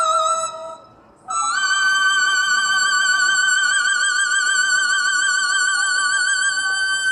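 Hainan Li folk music: after a short melodic phrase and a brief pause, two high pitched voices or wind instruments hold one long note together, the upper one with even vibrato and the lower one steady.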